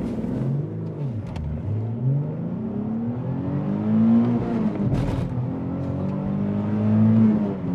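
Nissan 370Z's V6 accelerating hard in first gear through the newly rebuilt clutch, revs dipping as the clutch bites and then climbing steadily. About five seconds in, the 1-2 upshift comes with a short sharp noise that the driver hears as the tires going chut-chut, and the revs climb again in second before falling near the end.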